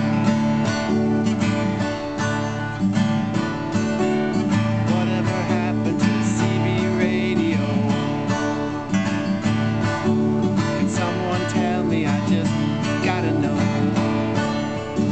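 Acoustic guitar strummed steadily, with a harmonica played from a neck rack over it: an instrumental break with no singing.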